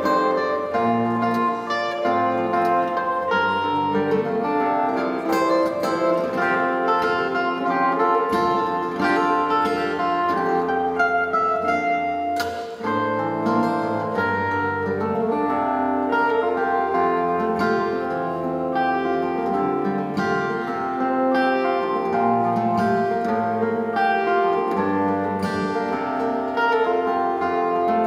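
Steel-string acoustic guitar played solo fingerstyle: a steady flow of plucked melody notes over bass notes, with one sharp percussive knock about twelve seconds in.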